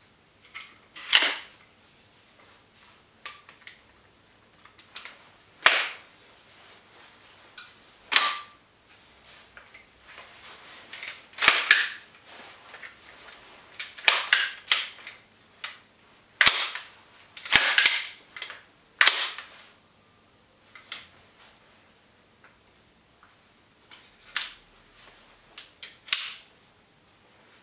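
Sharp plastic-and-metal clicks and clacks from the parts of a WE MSK (Masada ACR) gas blowback airsoft rifle being worked by hand, such as its folding stock. About a dozen at irregular intervals, some in quick pairs, with short quiet gaps between.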